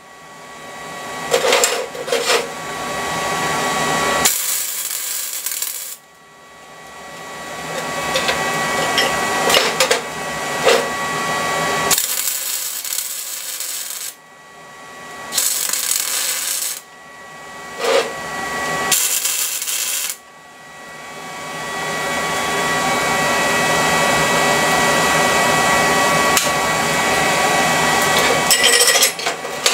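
MIG welding arc crackling and sizzling in several runs that stop and start, the longest about eight seconds near the end, with a few short metal knocks between runs.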